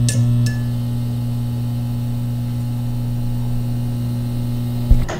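Outro music holding one steady low note, which cuts off abruptly with a click near the end.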